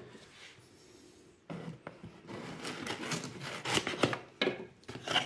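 A knife blade slitting the packing tape along a cardboard box's seam, with irregular scraping and rubbing of the cardboard. It starts about a second and a half in, after a quiet moment.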